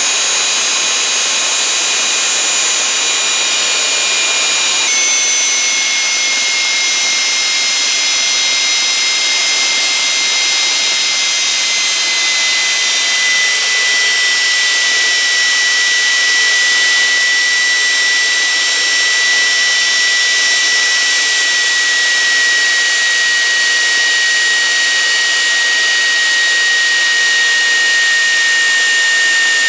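Rolls-Royce Marine Spey gas turbine running: a loud, steady rushing roar with high whining tones on top. About five seconds in the whine steps down in pitch, then keeps sinking slowly as the engine eases off.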